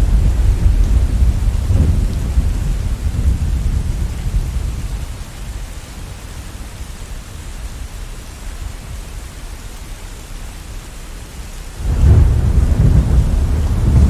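Steady rain with rolling thunder. A low rumble of thunder fades away about five seconds in, leaving the rain hiss, and a new peal of thunder breaks in suddenly near the end.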